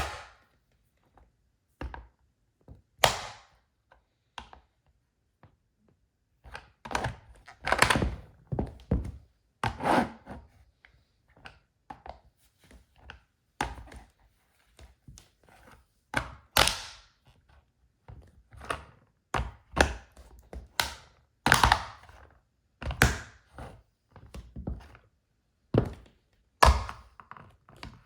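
Irregular thunks and crunching as a wedge shoe stomps on and crushes a plastic toy car, some hits sharp and short, others with a longer cracking, crunching tail.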